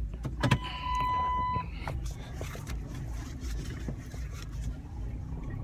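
Car engine running low and steady while reversing slowly. Near the start a single high electronic beep is held for about a second and a half, and a sharp knock sounds about half a second in.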